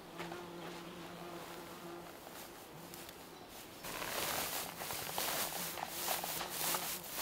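A flying insect buzzes with a steady low hum. About four seconds in, louder rustling and crackling starts as hands lay and press down slabs of dry forest moss.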